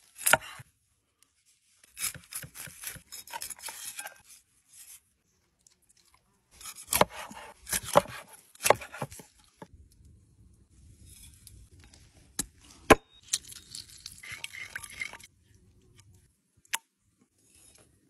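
A cleaver working a fresh fish on a thick wooden board: a sharp chop at the start, a few seconds of scraping, then a run of loud chops about halfway in. After that, oil is poured from a small bottle into a wooden bowl, with a couple of sharp clicks.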